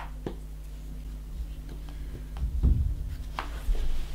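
Wooden game pieces and tokens handled and set down on a cardboard game board: a scattering of light clicks and a few duller knocks, with a steady low hum underneath.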